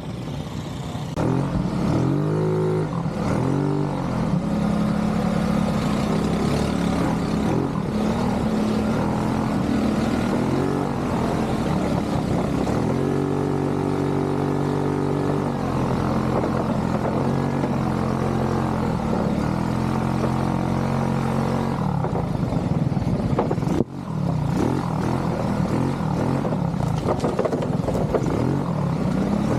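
ATV engine running and revving up and down in uneven surges as the throttle is opened and eased off, with a brief sharp drop in sound about 24 seconds in.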